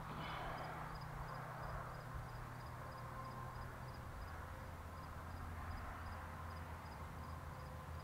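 Quiet outdoor ambience: a faint low rumble and a faint high chirp repeating a few times a second, typical of an insect.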